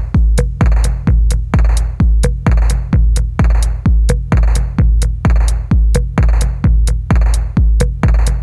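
Background electronic music with a steady drum-machine beat, about two beats a second.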